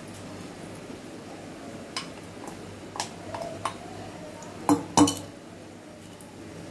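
Steel bowl and utensils clinking against an iron tawa while egg batter is poured and spread: a few light clinks, then two sharp metallic knocks in quick succession about five seconds in, over a steady hiss of the omelette frying in oil.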